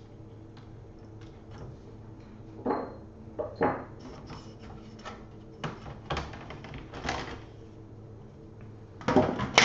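Plastic screen bezel of an Asus G74 laptop being pulled off by hand, its clips snapping loose in a series of short sharp snaps, with a quick cluster of them near the end.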